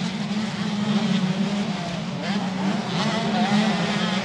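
125 cc two-stroke motocross bikes racing, their engines buzzing at high revs with pitch that rises and falls as the riders work the throttle.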